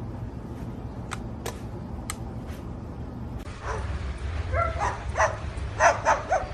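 A small dog barking in short, quick yaps, several in a row starting about four and a half seconds in, after a few faint clicks.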